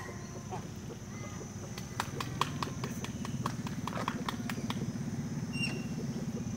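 A run of sharp, irregular clicks, and under them a small engine running with a steady low hum that fades in about two seconds in.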